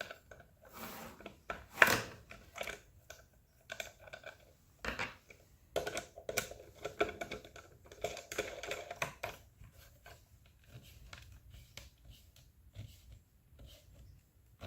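Irregular small clicks, taps and knocks with a few short scrapes, from small parts being handled and fitted together on a workbench.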